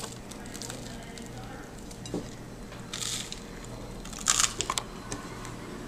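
Crispy toasted French bread being broken apart and bitten into: a few short crunches, the loudest about four seconds in, over a low steady hum.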